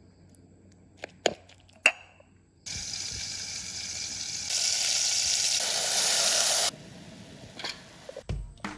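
Food cooking in a hot pan: a steady sizzling hiss for about four seconds that grows louder halfway through and cuts off abruptly, after a few sharp taps near the start.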